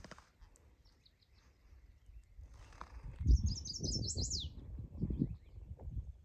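A songbird singing a quick, high, run-together phrase of notes that falls in pitch at its end, about three seconds in, after a few faint chirps. Irregular low rumbling on the microphone starts along with it.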